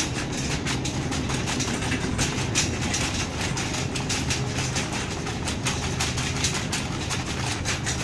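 Shopping cart rolling over a tiled floor, its wire basket rattling and its wheels clicking without letup, over a steady low hum.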